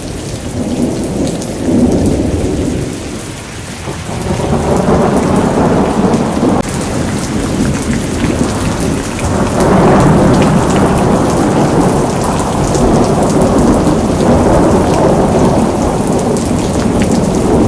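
Heavy rain and hail pouring down, with a deep rumble underneath. The storm dips briefly about three seconds in, then swells back up and stays loud.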